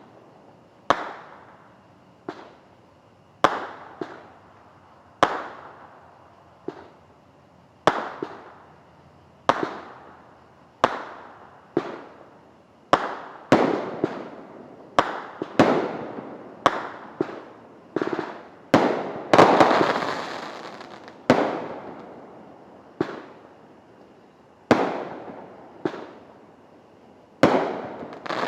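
Consumer fireworks going off: a long run of single sharp bangs, each with a fading echo, about one a second and coming closer together in the middle. A dense burst of crackle comes about two-thirds of the way through.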